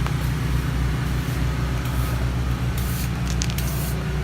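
A small engine running steadily, a low droning hum with no change in speed, with a few short hissing noises in the last second or so.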